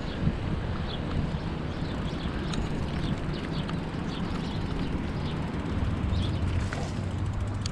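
Riding noise on a chest-mounted GoPro Hero 7 Black during a bicycle ride: a steady low rumble of wind and tyres, with short bird chirps scattered over it.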